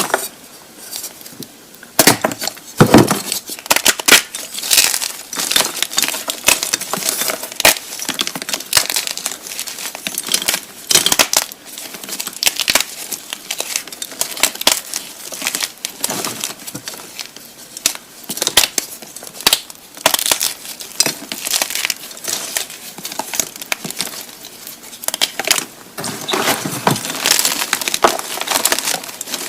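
Blocks of gymnastic chalk being crushed: a dense, irregular run of crisp crunches and crumbling, after a quieter first two seconds.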